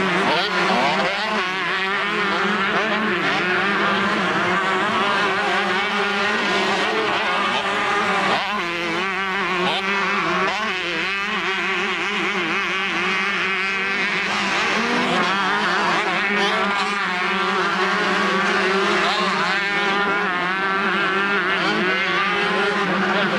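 Several two-stroke motocross bikes racing, their engines revving up and down again and again in overlapping pitches, over a steady low hum.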